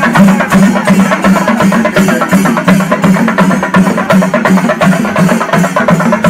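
Loud percussion music: fast, steady drumming with rapid sharp strokes that does not let up.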